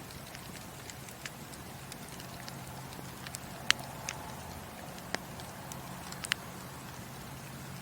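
Wood fire burning in a fireplace: scattered sharp crackles and pops over a steady low rumble, the loudest pop about halfway through.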